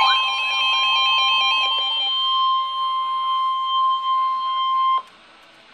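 Emergency Alert System attention tone: a steady, high electronic tone that stops abruptly about five seconds in, with a wavering, siren-like tone over it that fades away in the first two seconds. It announces a National Weather Service severe thunderstorm warning.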